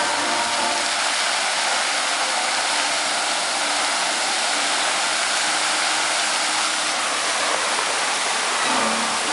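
Steady rushing and splashing of the dancing fountain's many water jets falling back into the pool.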